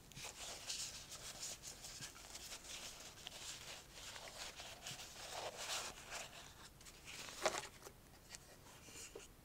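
Soft fabric rustling and handling as hands pull a knitted cover off a ball-jointed doll's head, with one sharper, louder rustle or knock about three quarters of the way through.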